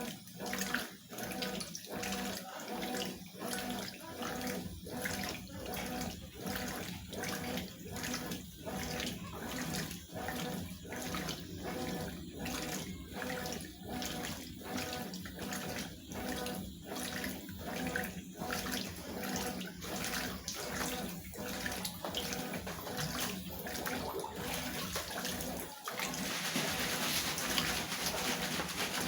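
Consul top-load washing machine agitating a load of jeans in water: rhythmic sloshing at about one and a half strokes a second over a steady motor hum. Near the end the rhythm stops and gives way to a louder, steady rush of water.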